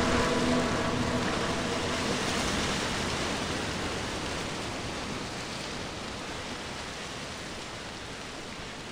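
A steady rain-like hiss of noise closing out an indie synth-pop track, fading slowly and evenly, with a faint held note dying away in the first second or two.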